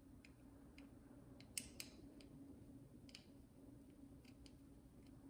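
Small Phillips screwdriver turning tiny screws out of a circuit board: faint scattered clicks and ticks, with two sharper clicks close together about a second and a half in and another near three seconds.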